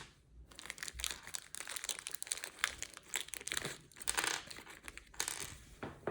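Minifigure packet crinkling and rustling in irregular bursts as it is handled and opened.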